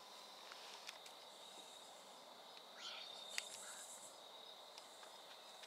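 Faint, steady, high-pitched trilling of insects such as crickets in quiet woodland, with a few soft ticks.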